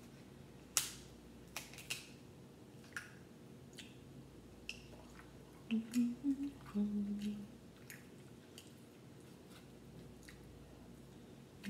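Crab-leg shell cracking and snapping as it is broken apart by hand: a sharp crack about a second in, then a few smaller snaps. Around the middle come a few short low hummed "mm" sounds with mouth noises of eating.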